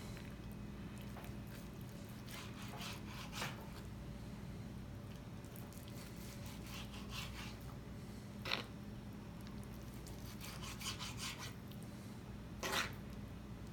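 Knife slicing through raw tuna on a cutting board: faint sawing strokes, with a few sharper knocks of the blade against the board, over a low steady hum.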